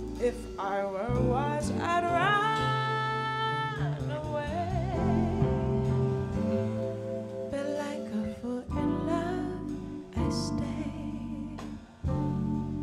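Live jazz ballad: a woman singing over vibraphone, piano, bass and drums. About two seconds in she slides up into a long held note with vibrato.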